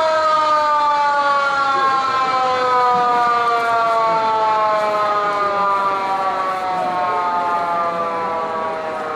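Koshien Stadium's siren sounding one long, loud tone that slides slowly down in pitch.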